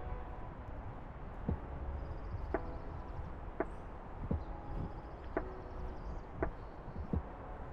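Walking footsteps, about one step a second, some with a short ringing tone after them, over a steady low rumble.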